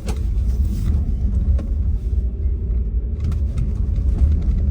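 A vehicle driving along: a steady low rumble, with a single knock at the very start.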